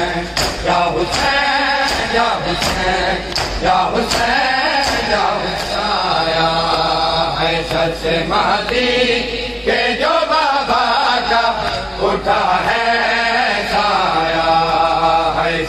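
Men's voices chanting a noha (Shia lament) together, over a steady rhythm of sharp chest-beating (matam) slaps.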